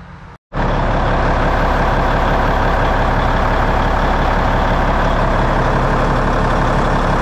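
Cummins N14 inline-six diesel engine idling steadily with an even low firing pulse, cutting in abruptly about half a second in.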